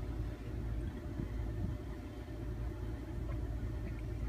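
Engine of a four-wheel-drive vehicle idling, a steady low rumble.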